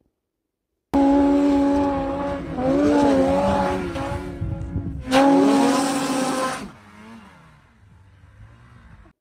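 Snowmobile engine running at high revs, a steady high-pitched drone that dips and rises in pitch as the throttle changes. It surges back louder about five seconds in, then falls away sharply near the end to a faint, lower engine sound.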